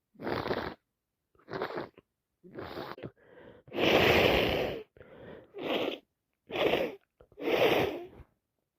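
A woman with a heavy cold sneezing again and again, with breaths between, in a run of short bursts about a second apart. The loudest sneeze comes about four seconds in.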